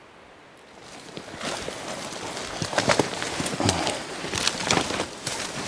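Hurried footsteps and brush swishing against packs and clothing as hunters push down a steep slope through thick undergrowth, with irregular sharp cracks. It starts about a second in and grows louder.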